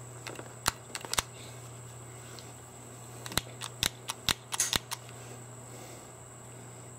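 Sharp metallic clicks of a Boberg XR9-S pistol's slide and slide release lever being worked by hand, a few around a second in and a quick run of them between about three and five seconds in. The pistol is jammed, with a round caught above the magazine and the magazine stuck in the grip.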